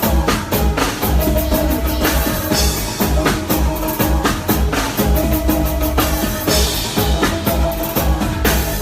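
Live band playing an instrumental groove with no vocals: drum kit keeping a steady beat with bass drum and snare under held keyboard or guitar tones and a heavy low bass line.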